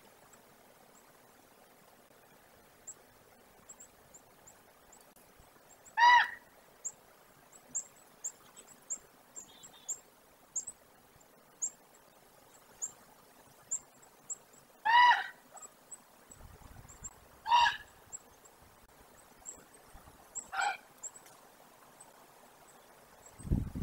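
Wolf whining: four short, high-pitched whimpers spread out over about fifteen seconds, over faint high chirps. A low rumble comes right at the end.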